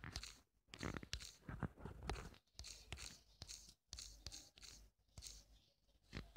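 Faint, irregular taps and rustles, a few a second, of fingers typing on a phone's touchscreen, picked up by the phone's own microphone.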